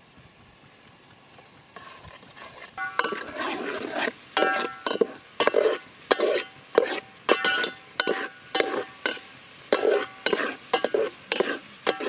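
Metal ladle stirring chopped onions and green chillies frying in oil in a metal pot, scraping and clanking against the pot about twice a second with the pot ringing. The stirring starts about two seconds in.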